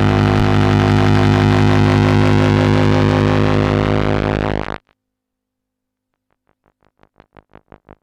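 Electronic drone music: a loud sustained chord with many overtones cuts off abruptly about five seconds in. After a short silence, a quick pulsing note, about six pulses a second, fades in near the end.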